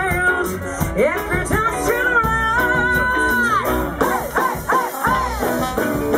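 A live band playing an upbeat soul number, with drums, bass, electric guitar and keyboard, and a woman singing over it.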